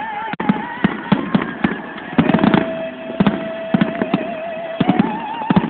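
Consumer fireworks going off: a rapid, irregular string of bangs and crackles, several a second, with a held, slightly wavering tone running beneath them.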